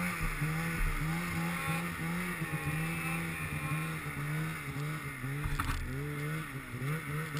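Mountain snowmobile engine heard from on board, its pitch rising and falling as the throttle is worked through deep powder, over a steady hiss.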